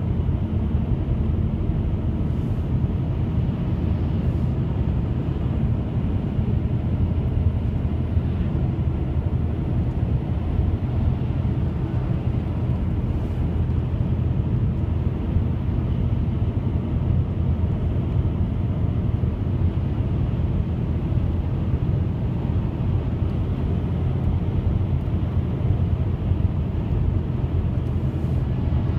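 A steady, low droning hum made of several held low tones that neither rise nor fall. It is the unexplained sound passed off as 'strange trumpet sounds'.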